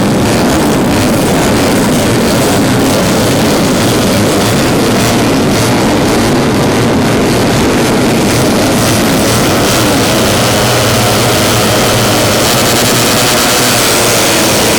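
Racing 150cc four-stroke underbone motorcycles running at high revs on track, a loud continuous engine howl that grows sharper near the end as bikes come closer.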